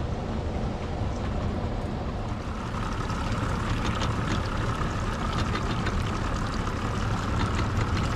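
Steady low rumble and rushing water around a fishing boat held in fast river current, with many small irregular splashes or ticks from about three seconds in.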